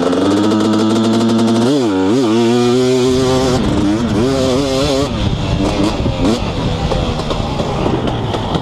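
2018 KTM 250SX two-stroke engine with an FMF Powercore 2 exhaust, launching hard off the start. Its pitch climbs, drops twice about two seconds in as it shifts, then rises and falls as the bike rides on.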